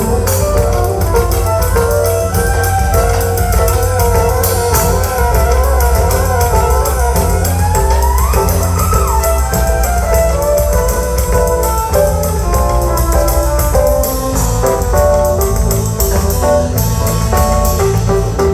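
Live band playing an instrumental passage: a wavering melodic lead over a steady bass line and percussion, with the lead sliding upward about eight seconds in.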